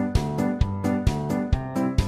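Background music with a steady beat of about two strikes a second under sustained pitched notes.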